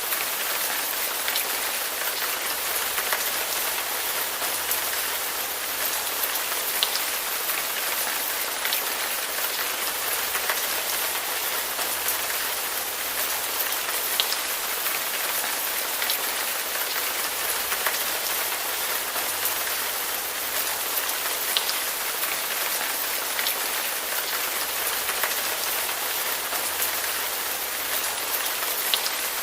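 Steady rain falling, an even hiss with scattered sharper drops striking a surface.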